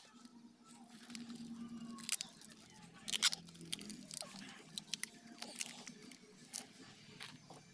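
Clear plastic packing tape being pulled from the roll and wrapped around a graft on a plant stem, with sharp crackles and pops, loudest about three seconds in.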